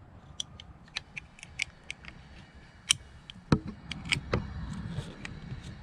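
Irregular light metallic clicks and clinks as the seal cap of a SeaStar hydraulic steering cylinder is tightened with a spanner tool. There is a heavier knock about three and a half seconds in.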